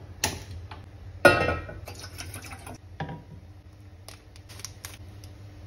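A gas lighter clicks at a stove burner, and about a second in a stainless steel pot is set down on the burner grate with a ringing metal clang. After that come light crinkles and clicks of a plastic tea sachet being torn open.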